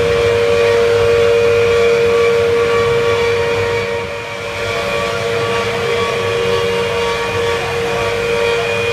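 CNC wood router running a cutting job, its spindle giving a steady whine over a rushing noise; the level dips briefly about four seconds in.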